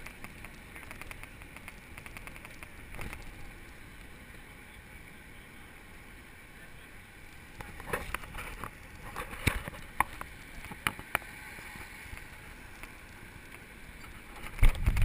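Riding a road bicycle in a group: steady road and tyre noise with wind on the microphone, a handful of sharp clicks and rattles from the bike in the second half, and heavy low wind buffeting near the end.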